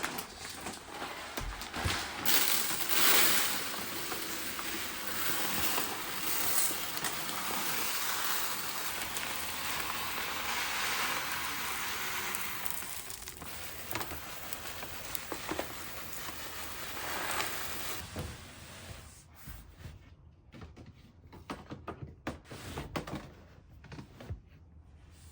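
A cat scratching and digging in cat litter, covering up after using the litter box: a continuous gritty rustling that dies down about three quarters of the way through into a few scattered scratches.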